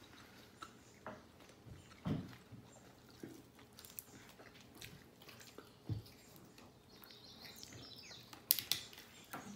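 Person eating grilled chicken wings by hand: quiet chewing and biting with scattered small clicks and smacks, and a sharper cluster of clicks near the end as she bites into a wing.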